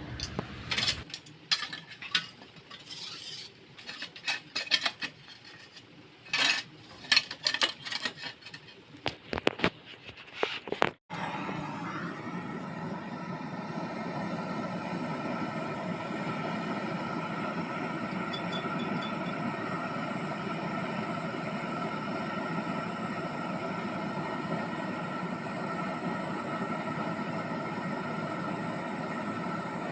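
Light metallic clinks and taps of tools and copper pipe being handled, then, after a sudden cut about 11 seconds in, the steady rushing hiss of a gas brazing torch flame joining a refrigerator's suction line to the compressor.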